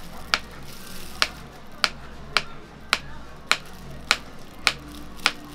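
Kitchen knife slicing a banana into rounds, the blade clicking sharply onto a plastic cutting board with each cut, about two cuts a second at an even pace.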